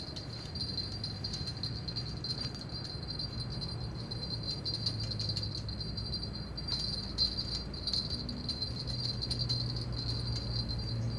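Steady high-pitched insect buzzing, fluttering rapidly, over a low hum.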